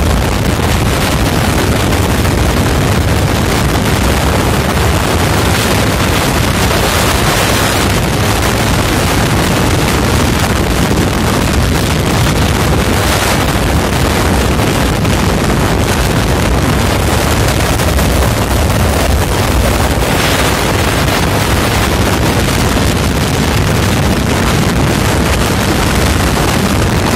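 Loud, steady wind buffeting on the microphone over the low rumble of a vehicle's road and engine noise while driving at speed.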